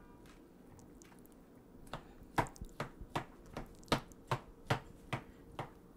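A spoon chopping boiled cauliflower florets in a bowl of batter: a run of about ten soft, squishy knocks, a little over two a second, starting about two seconds in.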